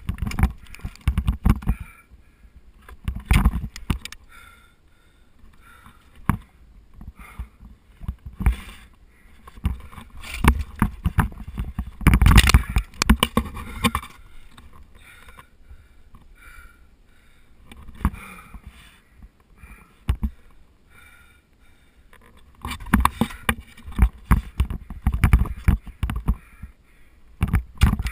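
Ice axe picks and crampon points striking and kicking into waterfall ice, heard close up as clusters of sharp thuds and crunches with pauses of a few seconds between them.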